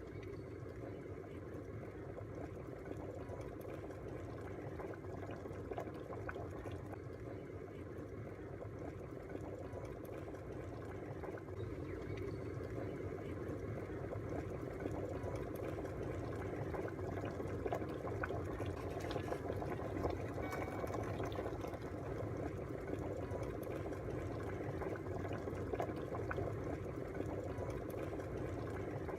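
Electric kettle heating water with descaling solution, a steady bubbling rumble that grows slowly louder as it nears the boil.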